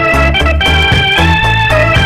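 Background music: a melody of held notes over an evenly pulsing bass line.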